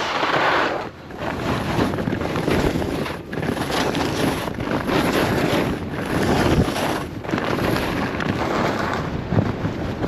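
Wind rushing and buffeting over the microphone of a skier's action camera while skiing, with skis hissing through snow; the noise swells and dips.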